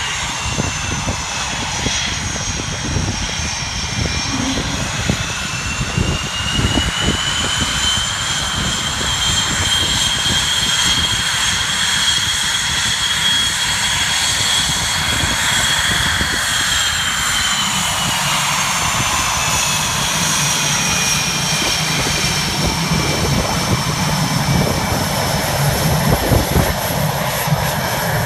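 Swiss Air Force F/A-18 Hornet's twin General Electric F404 turbofans running at taxi power, a loud, steady jet whine over a rushing roar. The whine rises in pitch a few seconds in, holds, then falls away in the second half, and a low rumble builds near the end as the jet taxis close by.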